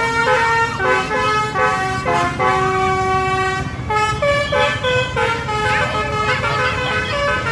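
Telolet basuri bus horn playing a tune in short stepped notes, with one longer held note a few seconds in. Voices shouting over it in the second half.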